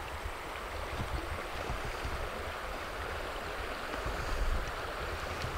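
Shallow stream running steadily over gravel, with low wind buffeting on the microphone.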